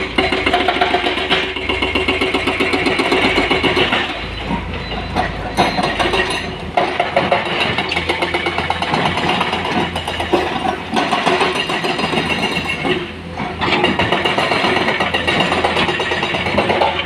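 Diesel engines of Komatsu PC210 hydraulic excavators and a dump truck running steadily, with several sudden crashes as rock and soil are dropped into the dump truck's bed.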